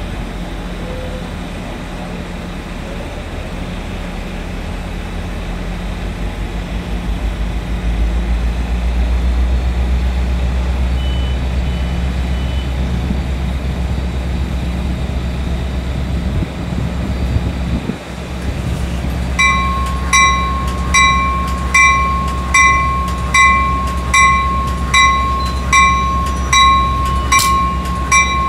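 Amtrak Pacific Surfliner's diesel engine running with a low hum that grows louder about a third of the way in. Three short high beeps come near the middle. From about two-thirds of the way in, a bell strikes a little more than once a second as the train gets ready to depart.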